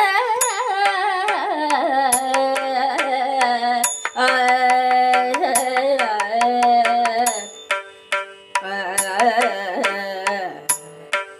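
Carnatic music in raga Naattai, Adi talam: a melodic line that glides and ornaments between notes over a steady drone, with sharp hand-drum strokes throughout.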